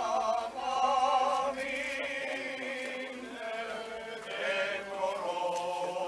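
Orthodox priests chanting a funeral hymn in male voices: long held, slightly wavering notes that move slowly from pitch to pitch.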